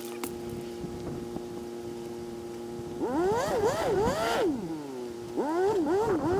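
A motor running with a steady whine, twice revving in quick up-and-down swoops of pitch: once about three seconds in for a second and a half, and again near the end.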